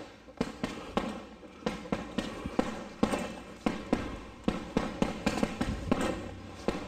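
A steady run of dull thuds, about three a second.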